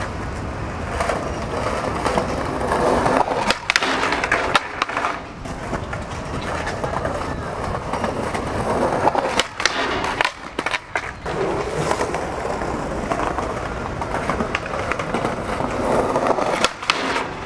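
Skateboard wheels rolling steadily over smooth stone paving, broken several times by sharp clacks of the board on the ground.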